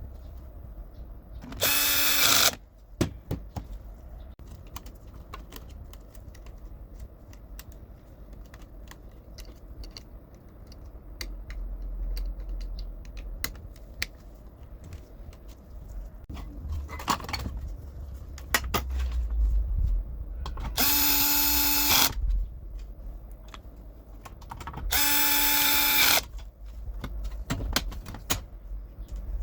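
Cordless screwdriver driving screws during reassembly of a laser printer, in three short runs of about a second each, with small clicks and knocks of parts being handled between them.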